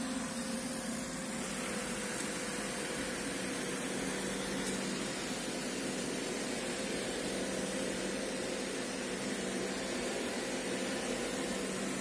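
iRobot Roomba e5 robot vacuum running: a steady whirring noise of its vacuum motor and brushes, with a constant low hum.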